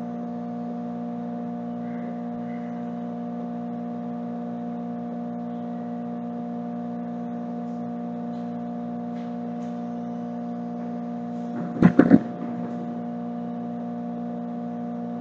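A steady hum of several fixed tones, broken about twelve seconds in by a short cluster of loud knocks as someone sits down in a wooden armchair at the table.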